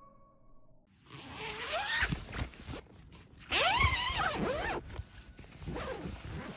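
Tent door zipper being pulled open in a few long rasping strokes. The longest and loudest pull comes a little past the middle.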